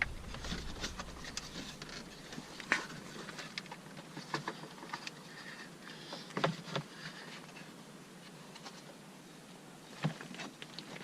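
Scattered clicks and knocks as a new rear coil spring is forced into its seat in a Chevy Cobalt's rear suspension, with a few sharper knocks spread through.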